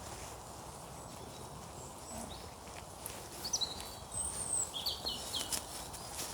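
Small songbird giving a short run of high chirps over woodland background hiss, starting about three seconds in.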